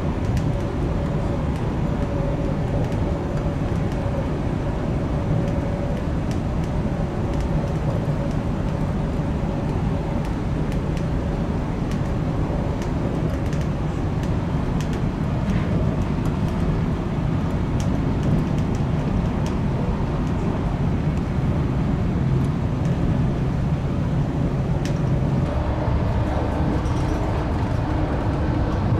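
Steady running noise of a Frecciarossa 1000 high-speed train heard inside the carriage: a continuous low rumble that grows a little louder near the end.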